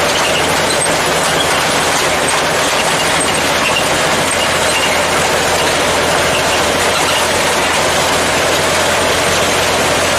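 Old ZiL-164 truck's six-cylinder side-valve petrol engine running: a loud, steady mechanical noise with a low, even hum underneath.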